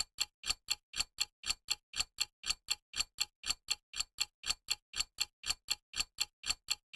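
Clock ticking steadily, about four ticks a second in a tick-tock rhythm: a countdown effect giving time to answer a quiz question.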